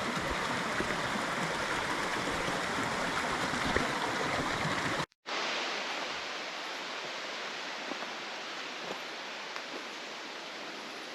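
Steady rush of water from a small rainforest waterfall and creek. A brief dropout about five seconds in, after which the water sounds quieter and thinner.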